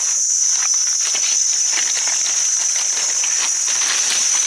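A steady, high-pitched forest insect chorus, with irregular crackling of dry leaf litter close by.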